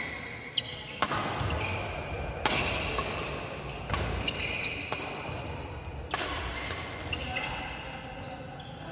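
Badminton rackets striking a shuttlecock back and forth in a doubles rally, a string of sharp echoing hits about a second apart that stops near the end.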